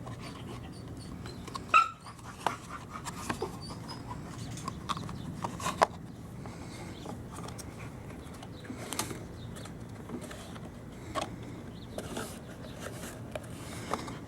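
Scattered plastic clicks and knocks as the air filter cover on a Toro Recycler mower is fitted and snapped back into place. The sharpest click comes about two seconds in, and another near the six-second mark.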